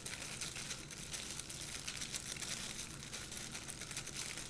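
Thin disposable plastic gloves crinkling continuously in many small crackles as gloved hands press ground pork filling into a slit slice of eggplant.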